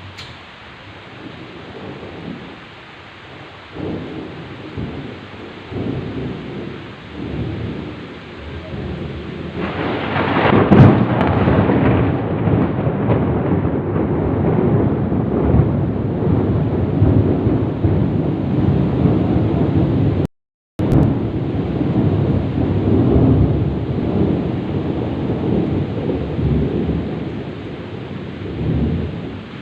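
Heavy rain falling during a thunderstorm, with a long rolling thunder rumble that builds about ten seconds in and rumbles on loudly until near the end. The sound drops out completely for an instant about two-thirds of the way through.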